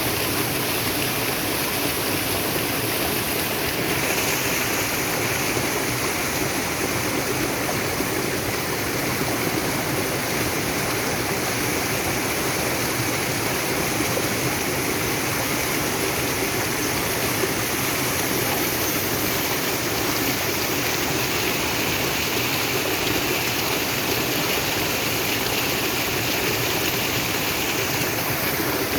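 Naturally flowing water: a stream rushing and splashing steadily.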